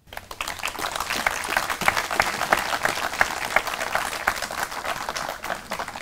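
Audience applauding: many hands clapping in a dense patter that starts abruptly and thins out near the end.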